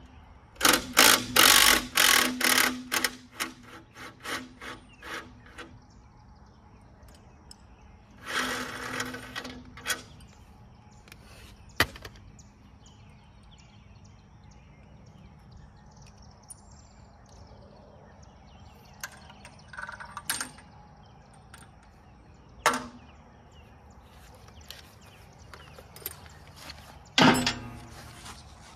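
Cordless power tool run in quick short bursts, loosening bolts, then a longer run about eight seconds in. A few sharp metal clanks of tools follow.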